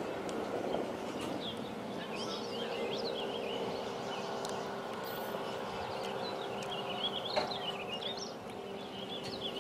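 Outboard motor of a small speedboat running flat out on the lake, heard as a steady high drone, with small birds chirping close by.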